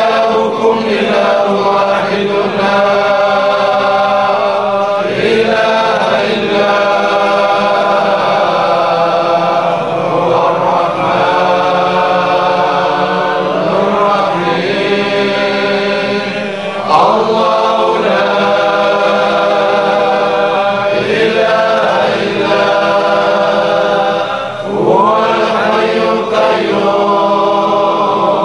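A group of men chanting an Arabic devotional litany together in unison, in long drawn-out melodic phrases with held notes that rise and fall, steady and without breaks.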